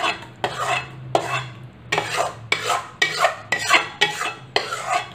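Steel spatula scraping hot ghee-roasted wheat flour out of a steel pan into a steel bowl, in short repeated strokes about twice a second.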